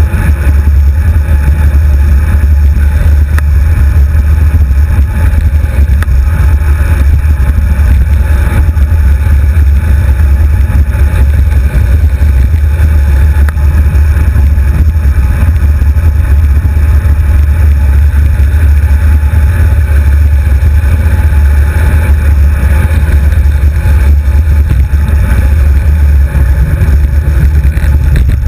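Wind buffeting a handlebar-mounted GoPro HD2's microphone as a road bicycle rolls along at speed, with road vibration through the bars: a loud, steady low rumble with no break.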